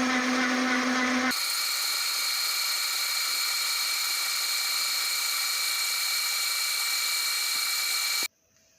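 NGF-110 CNC milling machine running and cutting metal: a lower hum switches abruptly about a second in to a steady high-pitched whine with hiss, which cuts off suddenly near the end.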